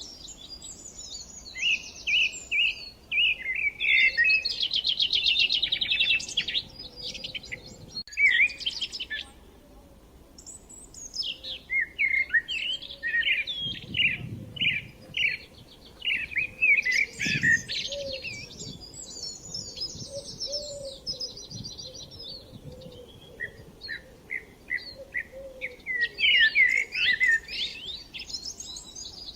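Several songbirds singing at once: overlapping phrases of chirps and fast trills, some rapidly repeated, with a faint steady rush of flowing river water underneath.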